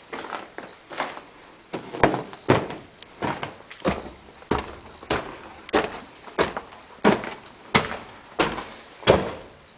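Footsteps walking over a floor littered with broken drywall and up wooden stairs, a steady tread of about three footfalls every two seconds from about two seconds in.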